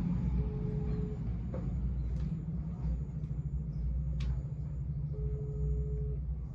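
Phone ringback tone of an outgoing call: two steady beeps, each about a second long and about four seconds apart. Underneath is a steady low rumble.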